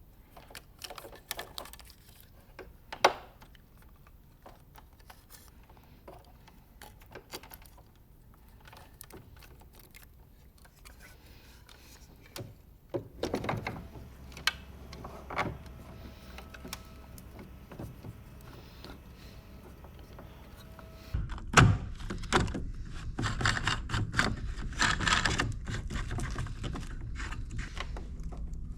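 Handling noise from fitting a mounting bracket and running wiring: scattered knocks, clicks and small rattles of parts and fittings. There is one sharp knock about three seconds in and a busier stretch of clattering near the end.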